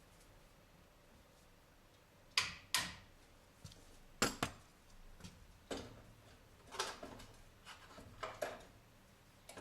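Hand tools working on metal: a series of irregular sharp clicks and clinks, two of them close together about two and a half seconds in and again about four seconds in, with more scattered through the rest. These are the sounds of refitting a repaired alternator.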